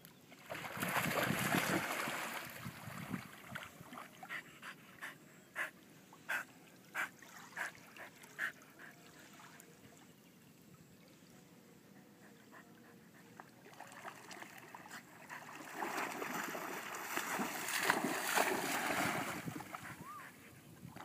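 Husky splashing through shallow lake water. Bursts of churning splashes come near the start and again in the last third, with a run of separate slaps of water in between.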